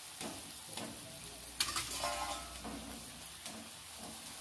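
Egg frying under a chapathi on an iron dosa tawa, sizzling steadily, while a metal spatula presses and scrapes on it. There is a sharp clack about one and a half seconds in.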